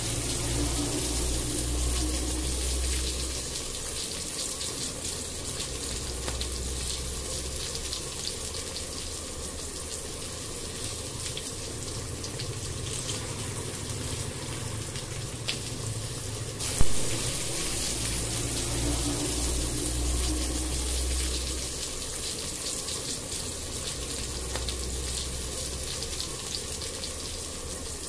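Chopped onion sizzling and crackling steadily in hot oil in a frying pan as it is stirred with a wooden spatula, with a low hum that swells and fades. One sharp knock about two-thirds of the way through.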